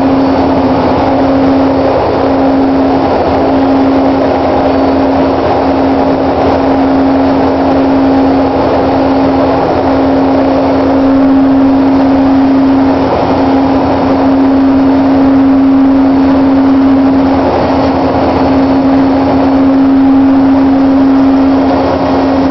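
Loud, steady drone of drill-floor machinery on an offshore drilling rig, with a strong hum held at one pitch.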